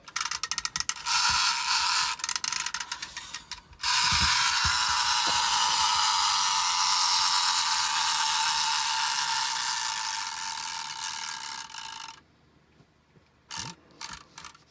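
Clockwork wind-up mechanism of a Schylling X-306 tin robot toy. It clicks rapidly for about four seconds, then runs with a steady high whir for about eight seconds. The whir eases slightly and stops suddenly as the spring runs down, and a few faint knocks follow.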